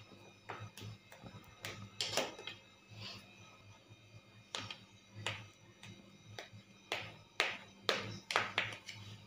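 Knife blade clicking and scraping against a steel thali while steamed dhokla is cut into pieces: about twenty irregular sharp clicks, with a short lull about four seconds in, over a low steady hum.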